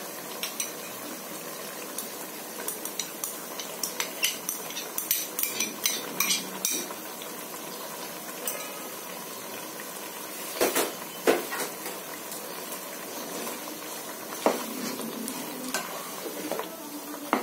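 Fish curry sizzling steadily in a pot on a gas stove. A run of clinks about two to seven seconds in as a metal spoon scrapes fried potato out of a glass bowl into the pot, then a wooden spatula knocking and scraping against the pot as the curry is stirred.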